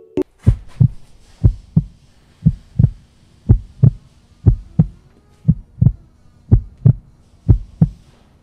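Heartbeat sound effect: a steady pulse of paired low thumps, about one pair a second, over a faint steady hum.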